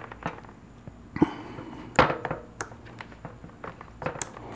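Scattered light clicks and knocks from hands working an EGO 14-inch battery chainsaw's chain-tension knob and handling its bar and chain, with the sharpest knocks about one and two seconds in.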